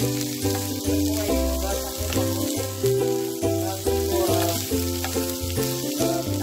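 Squid frying in hot oil with garlic, onion and ginger in a wok, sizzling steadily as it is stirred with a spatula, under background music with a stepping bass line.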